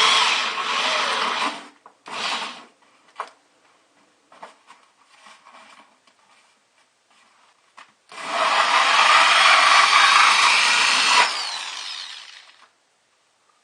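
Power drill with a hole saw cutting through a styrofoam cooler liner: a rasping, whining cut that stops about two seconds in, a short burst, a few handling knocks, then a second cut of about three seconds that winds down near the end.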